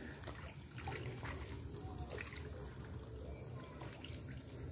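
Faint trickling water with quiet outdoor background, a few soft ticks scattered through it.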